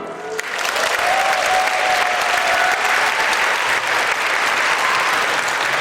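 Audience applauding in a concert hall, the clapping breaking out about half a second in and then holding steady.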